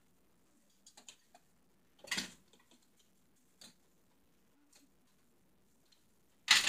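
Scattered light clicks and knocks of kitchen items being handled and moved while someone searches for a misplaced item, with a louder brief clatter about two seconds in and another sharp clatter at the very end.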